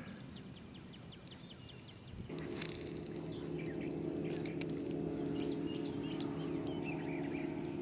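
Small birds chirping in the background. About two seconds in, a steady, even engine hum starts and holds.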